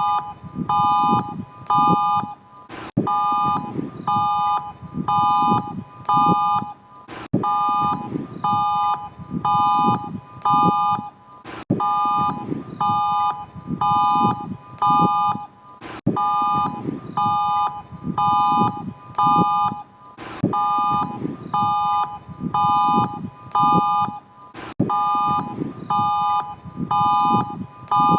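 Imitation emergency alert tone: a chord of several pitches beeping in groups of four or five short beeps. A sharp click falls between groups, and the pattern repeats about every four and a half seconds over a low rumbling noise.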